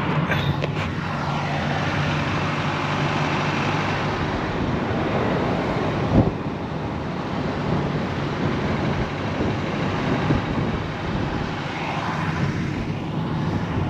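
Steady road and tyre noise inside a moving vehicle's cabin, with a low engine drone underneath and a single knock about six seconds in.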